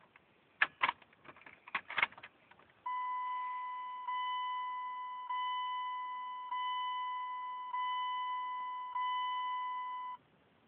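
A few sharp clicks and knocks, then a truck's cabin warning chime dinging steadily, one ding about every second and a quarter, six times, before cutting off suddenly.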